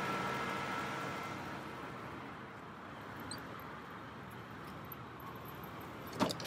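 Rolls-Royce Phantom's V12 idling, heard from right up close and almost silent: a faint low hum with a thin whine that fades away in the first second or two. A couple of light clicks near the end.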